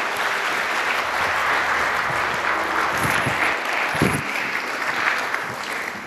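Audience applauding steadily, dying away near the end. There is a brief low thump about four seconds in.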